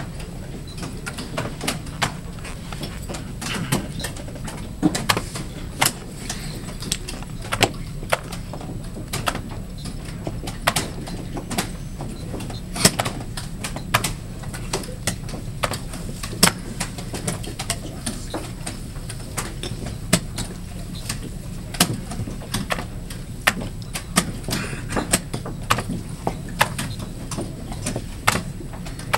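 Chess pieces set down on the board and chess clock buttons slapped in rapid blitz play: many sharp, irregular clicks and taps, several a second at times, over a steady low hum.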